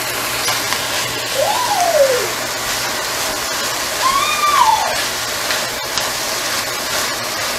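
Spinach sizzling in oil in a cast-iron skillet as it is stirred, a steady hiss. A young child's voice cries out twice over it, each call rising then falling in pitch, about one and a half and four seconds in.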